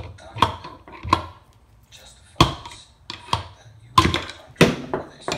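Long screwdriver jabbed down through a garden tractor's steel front wheel hub, knocking against the old metal bushing to drive it out. About seven sharp metallic knocks, irregularly spaced, each with a brief ring.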